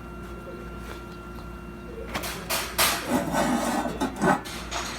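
TIG welder firing short low-pulse spot welds on thin stainless steel sheet: a few sharp crackling snaps starting about two seconds in, over a faint steady hum.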